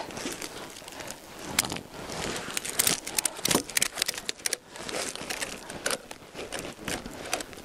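A tie-down strap being worked around logs on a sleigh, with irregular clicks from the strap's buckle and crinkly rustling of the webbing, mixed with snow crunching.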